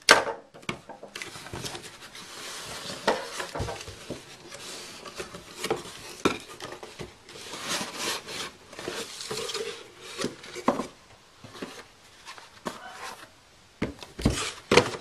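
Cardboard shipping carton being opened and unpacked by hand: rubbing and scraping of cardboard, with scattered knocks as the packing is moved and the boxed iPad is lifted out and set down.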